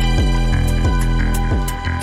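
Background music: pitched notes struck about three times a second over a steady low drone.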